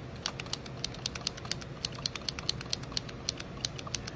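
Hand tally counter clicking in quick succession, together with a marker tip dotting the plastic petri dish, about three to four sharp clicks a second; each click tallies one bacterial colony as it is marked.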